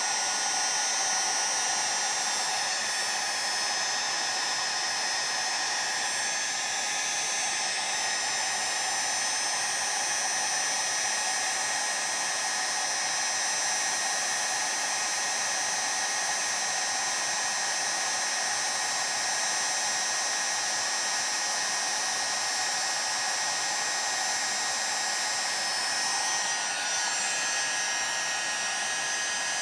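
Heat gun running steadily, blowing hot air into a chainsaw crankcase's bearing bore to warm it so the tight-fitting bearing can be installed.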